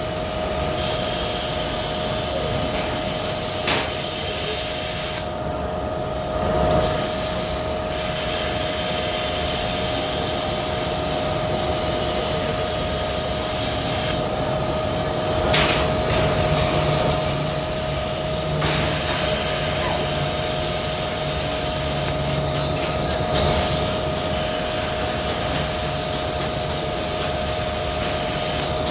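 Handheld plasma cutter cutting steel: a steady hiss of the arc and air with a steady whine under it. The hiss thins out briefly three times.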